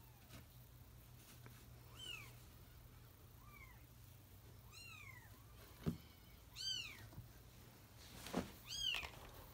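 Cat meowing: five short, high-pitched mews, each rising then falling in pitch. Two sharp knocks come in among them, one a little past the middle and one near the end.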